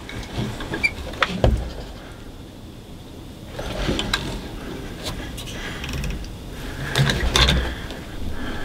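Soft knocks and rustles of someone shifting and handling gear inside an enclosed hunting blind, in three short clusters about one, four and seven seconds in.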